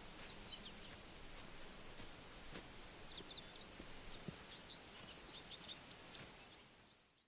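Faint woodland ambience with small birds giving short, high chirps and a few sharp ticks, fading out near the end.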